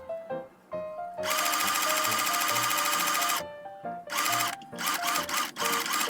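Mini electric sewing machine stitching: one steady run of about two seconds, then several short bursts near the end, over ragtime piano background music.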